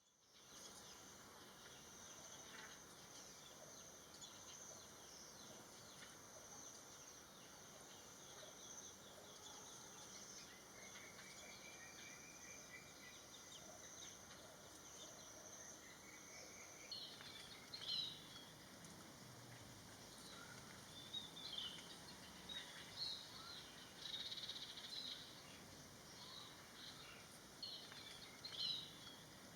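Faint outdoor garden ambience: a steady high-pitched insect hum through the first half, then short bird chirps scattered through the second half.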